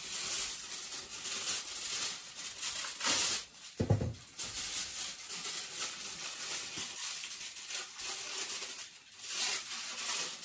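Aluminium kitchen foil crinkling and rustling as it is handled, with a single thump about four seconds in.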